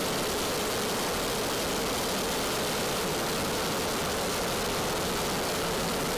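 Steady, unchanging rushing roar of a fighter jet in flight, engine and air noise with no distinct tones or impacts.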